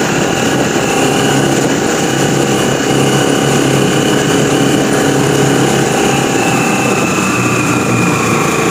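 Engine of a moving road vehicle running steadily at an even cruising speed, with road noise.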